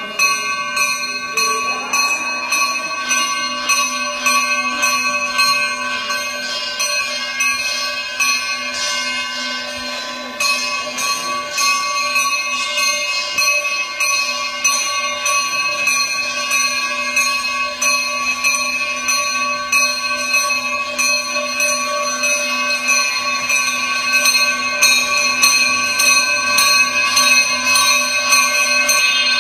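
Bells ringing continuously in quick strokes, their steady tones ringing on between strikes. The ringing grows louder in the last third.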